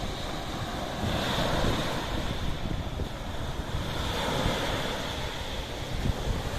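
Sea waves washing in a continuous hiss that swells about a second in and again around four seconds, with wind buffeting the microphone as a low rumble.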